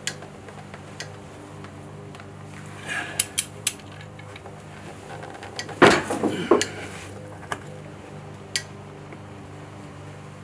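A loud bang with a short clatter about six seconds in: a footstool slipping. Around it come a few sharp metallic clicks and clinks as a long torque wrench is pulled slowly on a head-stud nut.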